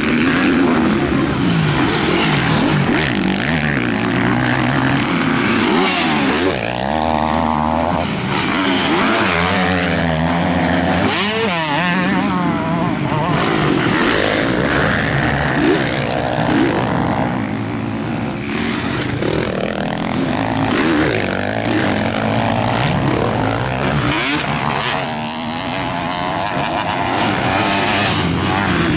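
A pack of motocross bikes racing, many engines revving up and down over one another. The notes rise and fall as the bikes climb, jump and pass close by, thickest about a quarter to halfway through.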